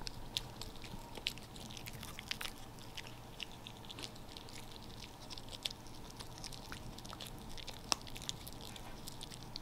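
Small dog chewing a tough chicken jerky treat: faint, irregular crunchy clicks of its teeth on the jerky, with one sharper click near the end.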